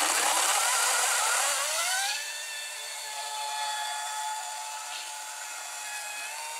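Battery-powered Ego chainsaw cutting through a log. Its electric motor whines with a rough, wavering pitch under load for about two seconds, then rises in pitch and runs at a steady high whine as the chain spins free.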